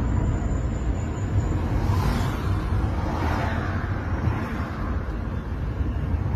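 Car driving along a road, heard from inside the cabin: a steady low engine and tyre rumble.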